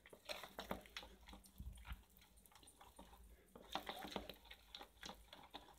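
Faint, irregular squelching and scraping of a silicone spatula folding thick cake batter with crushed chikki in a plastic bowl.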